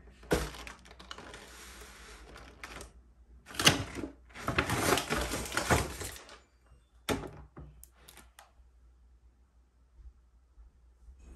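Stiff paper shopping bag rustling and crinkling as it is handled and a plastic food tray is taken out of it, with sharp knocks as things are set down on a table. The longest burst of crinkling comes about halfway through, and the last knock comes about seven seconds in.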